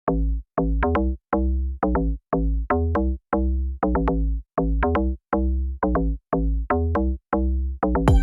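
Electronic background music: a drum-machine beat of short, deep bass notes, two or three a second.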